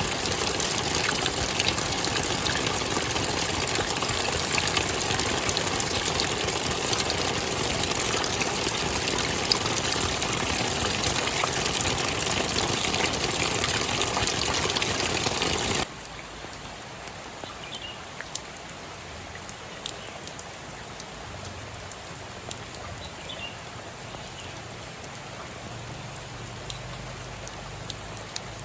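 Loud, steady rushing water. About halfway through it cuts abruptly to a much quieter water sound with scattered faint drips.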